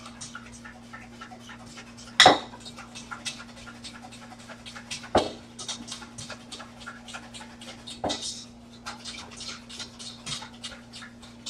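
Wire whisk beating waffle batter in a stainless steel mixing bowl: quick rhythmic strokes, about four a second, with a louder clack against the bowl three times, roughly every three seconds.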